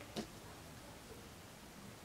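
Quiet room tone with one brief, faint sound a fraction of a second in.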